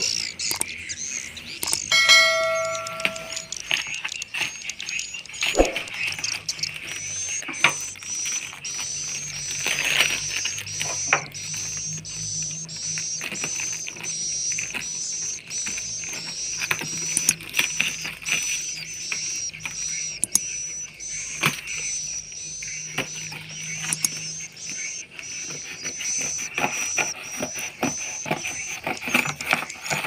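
Scissors snipping packing tape and a cardboard box being handled and pried open, with crinkling of a plastic bag: a run of short clicks and crackles. A chime sounds about two seconds in, and from about seven seconds on a high chirp repeats about twice a second in the background.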